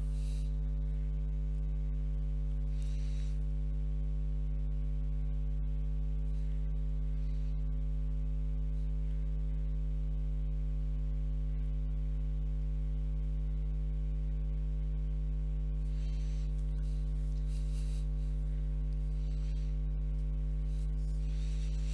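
Steady low electrical mains hum with a stack of overtones, unchanging throughout, with a few faint soft rustles now and then.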